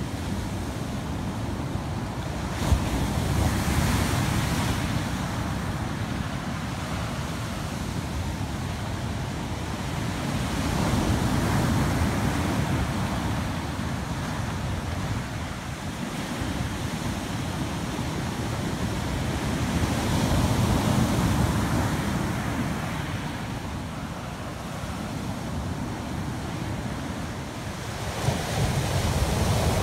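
Ocean surf: waves breaking and washing in, swelling louder every eight or nine seconds, with wind buffeting the microphone. A brief click sounds a few seconds in.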